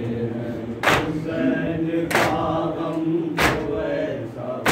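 A group of men chanting an Urdu nauha (Shia lament) in unison, punctuated by a sharp collective slap of hands on chests (matam) about once every one and a quarter seconds.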